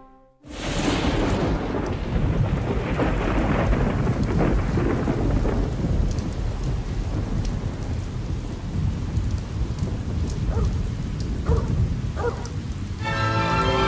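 A sudden thunderclap about half a second in, rolling on as a long rumble over steady rain. Music comes back in near the end.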